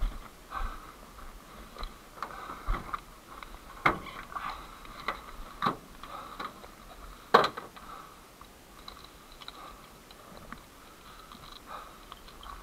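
Footsteps crunching on gravel and dry grass, roughly every half second, mixed with knocks and rubbing on the body-worn camera. One sharp knock about seven seconds in; after that the steps grow fainter and sparser.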